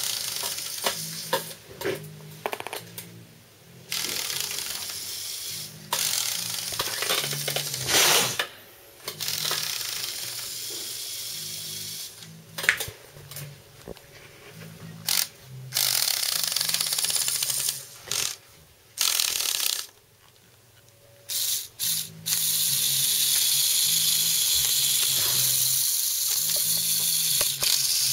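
Small LEGO Power Functions electric motor and plastic gear train whirring in stop-start bursts as the toy 4x4 car is driven, then running steadily for the last six seconds or so.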